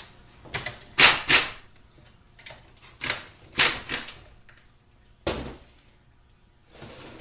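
A pneumatic shop air tool on a compressed-air hose, fired in a series of short, irregular bursts of hiss, the last about five seconds in.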